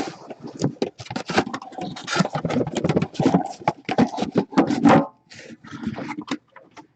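Cardboard hobby boxes being handled and marked, a dense run of scraping, rustling and light knocks that thins to a few scattered ticks after about five seconds.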